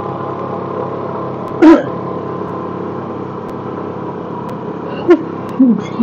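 Motorcycle engine running steadily as it climbs a hill road, heard from the rider's seat. A short, loud, pitched sound breaks in about two seconds in, and another comes near the end.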